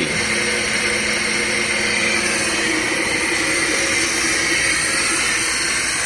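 Steady whirring hiss of a running Fadal VMC 4020HT CNC vertical machining center, with a low hum that drops out about two and a half seconds in.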